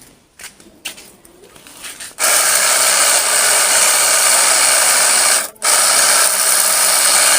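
Electric pressure washer starting about two seconds in and spraying a steady jet of water, with a low motor hum under the hiss. It cuts out for a moment a little past halfway, then runs on. A few light clicks come before it starts.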